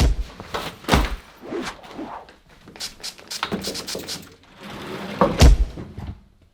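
A rapid string of thumps, knocks and scuffling clatter, with heavy thuds right at the start, about a second in, and again near the end.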